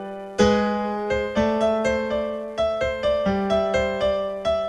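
Background piano music: a melody of single struck notes, a few a second, each fading away, over held low notes.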